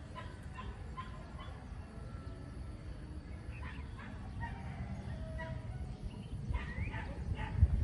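Scattered short animal calls over a low rumble, which swells near the end.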